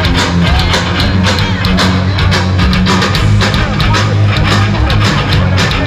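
Live rock band playing loudly, with electric guitar, heard from within the crowd.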